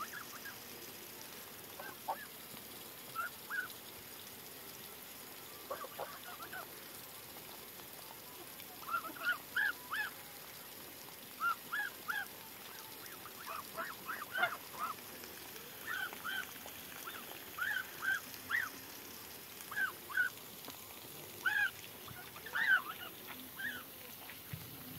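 Domestic geese honking: short calls, often in twos and threes, scattered at first and coming thick and fast from about nine seconds in.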